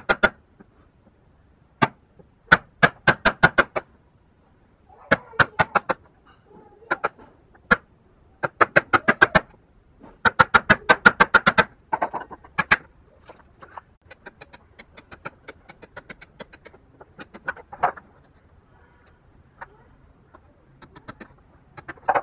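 Chisel struck by a ball-peen hammer, chopping a mortise into a small hardwood block in quick bursts of sharp taps, several a second. After about twelve seconds the strokes give way to fainter, scattered ticks and scraping as the chisel pares the chips out.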